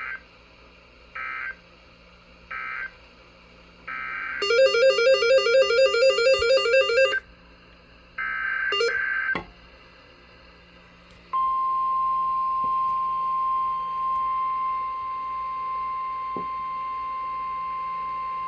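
EAS/SAME digital data tones from a NOAA Weather Radio broadcast: three short end-of-message bursts, then longer data bursts that open the next alert, with a loud, fast warbling tone in between. From about 11 seconds in comes a single steady weather radio warning alarm tone near 1050 Hz, the signal that a warning follows.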